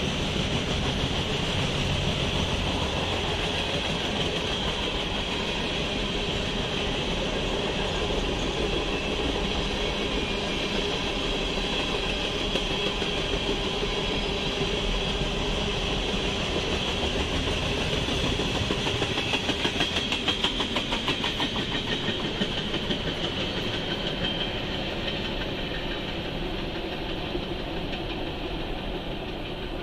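Freight train of tank cars rolling past, a steady noise of steel wheels on rail with a run of rhythmic clickety-clack about two-thirds of the way through. The sound fades near the end as the last cars clear.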